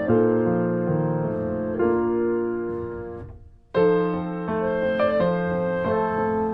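Classical solo piano music playing chords. About three and a half seconds in, the music dies away almost to silence, then starts again with a loud chord.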